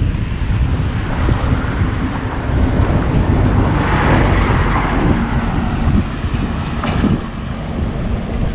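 Wind buffeting the microphone in a steady low rumble, while a passing vehicle swells up and fades away in the middle. A brief knock comes near the end.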